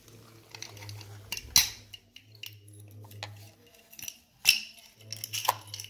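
Metal clicks and clinks of a round steel padlock and its key being handled, with the key pushed into the lock. Several sharp clicks, the loudest about a second and a half in and again about four and a half seconds in.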